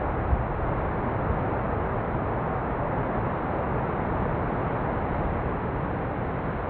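Rough sea surf: waves breaking on rocks and washing over a pebble shore, a steady rushing noise with a brief low thump about a third of a second in.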